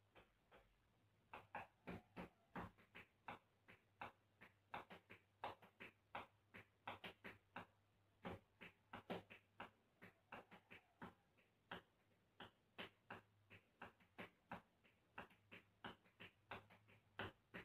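Tap shoes striking a hard floor in hoofing (rhythm tap) footwork: quick, uneven runs of sharp taps, several a second, with a short pause about a second in.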